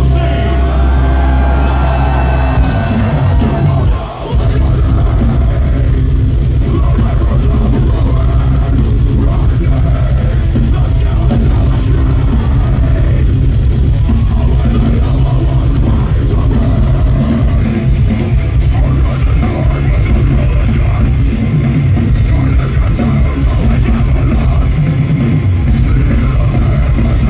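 A deathcore band playing live at full volume, heard from the crowd: heavily distorted guitars, bass and fast drumming, with a screamed vocal over it. The music breaks off briefly about four seconds in, then comes straight back in.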